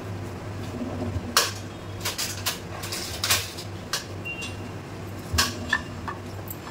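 Ceramic plates and a wooden spatula knocking and scraping while rice is spooned and arranged on a plate, in a dozen or so short clatters. The loudest come about a second and a half in and again about five and a half seconds in. A low steady hum runs underneath.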